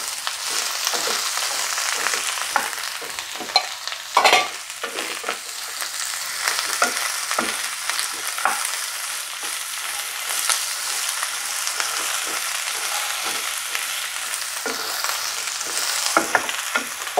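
Chopped vegetables sizzling in coconut oil in a non-stick pan while a spatula stirs them, with a steady hiss and repeated short scrapes and clacks of the spatula against the pan. The loudest scrape comes about four seconds in.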